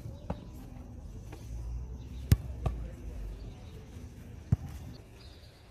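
Sharp thuds of a football being struck and caught in a goalkeeper's gloves, in close pairs a fraction of a second apart: one pair at the start, a louder pair a little past the middle, and a single thud near the end.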